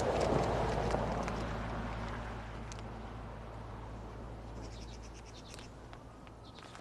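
Outdoor street ambience: a vehicle going by, loudest at the start and fading away, with a few faint bird chirps about two-thirds of the way through.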